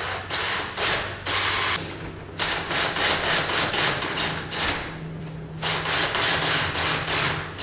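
A hand tool scraping against wood in quick repeated strokes, about three a second, with a short pause about two thirds of the way through.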